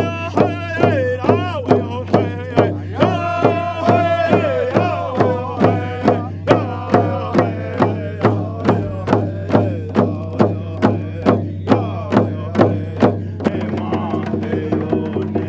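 Drum song: a drum struck in a steady beat of about two strokes a second while voices sing a gliding, chant-like melody. Near the end the drumbeat turns softer and the singing settles onto lower held notes.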